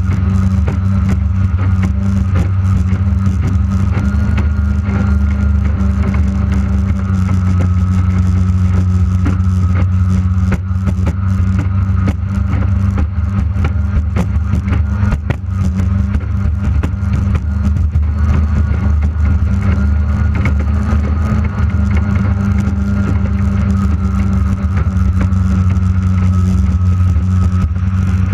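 Engine of a J Hydro racing hydroplane's outboard running at a steady high pitch throughout, heard from on board. Under it is a constant rush of wind and water.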